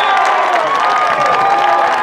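Crowd of spectators cheering and shouting, with many voices at once and hands clapping.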